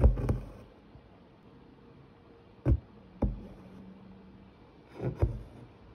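Hand-embroidery stitching: a needle with a single strand of cotton floss punching through thin canvas stretched taut in a hoop, making short sharp pops. There is one at the start, two about half a second apart a little before the middle, and a quick pair near the end.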